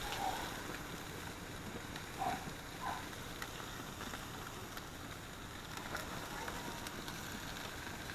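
Faint, steady sizzle of food cooking on a grill, with a few brief soft sounds in the first three seconds.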